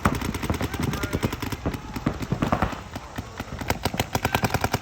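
Several paintball markers firing fast strings of shots that overlap into a near-continuous rattle, with brief shouts from players.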